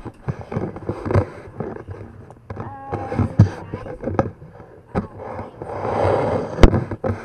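Knocks and handling noise of someone rummaging in a wooden cabin drawer. A rustling noise swells near the end and is cut by one sharp knock.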